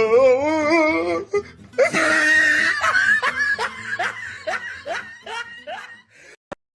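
A person laughing hard: a high, wavering laugh, then a shriek, then a run of short "ha" beats about two or three a second that trail off.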